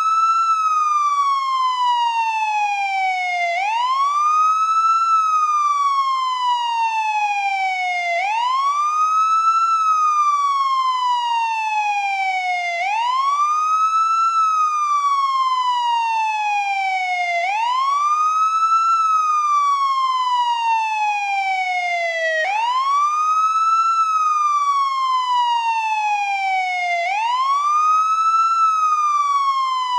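American police siren on the wail setting. Its tone sweeps up quickly and then falls slowly, repeating about every four and a half seconds.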